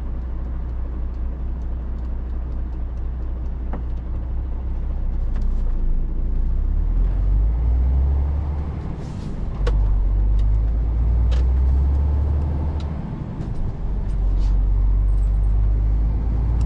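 MAN truck's diesel engine heard from inside the cab: idling, then pulling away about six seconds in and accelerating, the low drone dipping twice as gears change. A few short sharp clicks sound over it.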